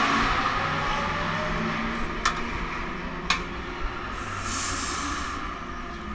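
Engine noise from a race car passing on the circuit fades away, heard from inside the pit garage. Two sharp metallic clicks come about two and three seconds in, and about a second of hissing follows near the end.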